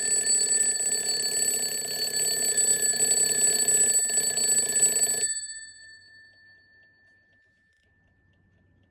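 Mechanical twin-bell alarm clock ringing, its hammer striking rapidly between the two bells. The ringing stops suddenly about five seconds in, and the bells' tone fades away over the next few seconds.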